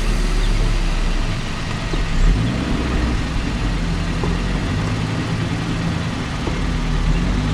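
Maruti Gypsy's engine running at low revs as it moves off gently towing a car on a rope, its pitch shifting slightly as it takes up the strain.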